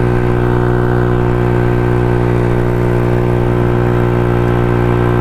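Honda Ruckus scooter engine running steadily at cruising speed, a constant drone that holds one pitch throughout.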